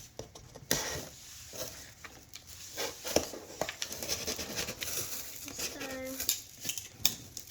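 Scattered clicks, taps and light rustles of paper and cardboard being handled and cut, with a brief voiced sound about six seconds in.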